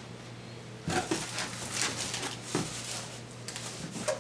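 Cardboard shipping box being handled: a run of rustles and scrapes starting about a second in.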